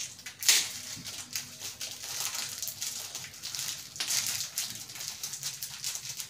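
Soft scratchy rustling and handling sounds from hands winding mauli thread around two dried turmeric roots. A couple of sharper clicks come about half a second in and again near four seconds.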